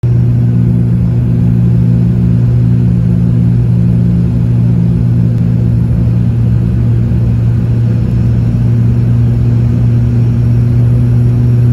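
Cabin drone of an ATR42-600's twin Pratt & Whitney PW127 turboprops and propellers, heard from inside the cabin during descent: a loud, steady, even hum with a strong low propeller tone and no change in pitch.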